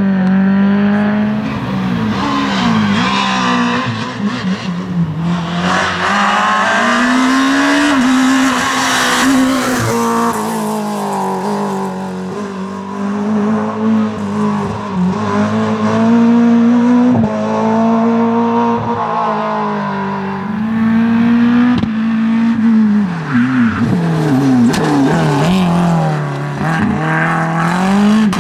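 Rally car engine revving hard, its pitch climbing and dropping again and again.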